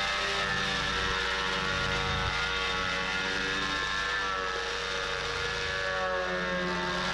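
A 12-inch Delta portable thickness planer running steadily, its motor and cutterhead whining with several steady tones as it planes spruce boards.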